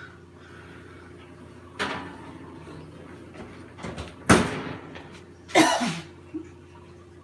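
Kitchen handling sounds: a soft knock, then a sharp bang a little over four seconds in like a cupboard door shutting, and a second, longer clatter about a second later.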